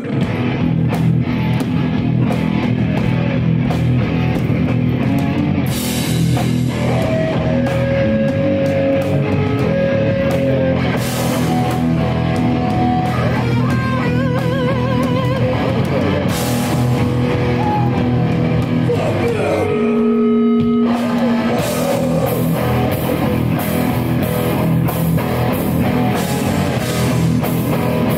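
Live rock band playing loud, led by electric guitar with wavering held notes over drums. About two-thirds of the way in the band briefly drops out to a single ringing note, then comes back in full.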